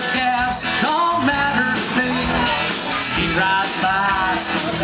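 A country rock band playing live through a bar PA, with electric guitars and drums, and a man singing lead into a microphone.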